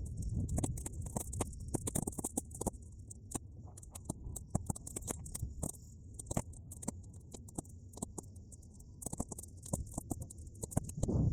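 Bonfire of half-dried weeds crackling with many sharp, irregular pops, over a low rumble of wind on the microphone, all sped up three times.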